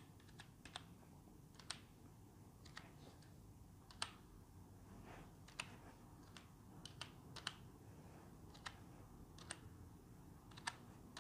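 Faint, irregular taps of digits being keyed one by one into a phone's touchscreen number pad, about twenty short clicks in all and sometimes two in quick succession, against near silence.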